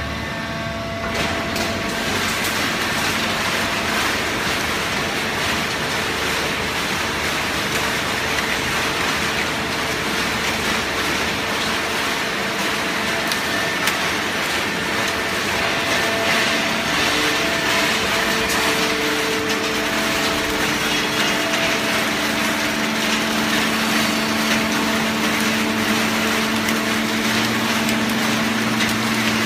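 Horizontal hydraulic waste-paper baling press running: a continuous loud machine noise with steady hum tones from its motor and hydraulic pump, which grows louder about a second in.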